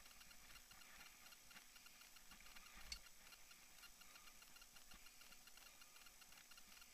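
Faint, rapid, even ticking of a mountain bike's rear freehub while the rider coasts downhill, with a single knock about three seconds in.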